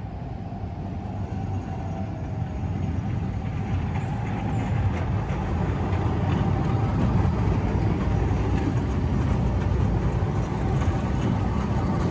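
Three-section Eurotram pulling into a tram stop, its running rumble steadily growing louder as it approaches and draws alongside.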